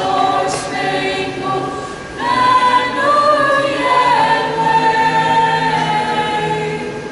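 Choir singing, several voices holding long notes together, with a brief dip about two seconds in before a louder held chord.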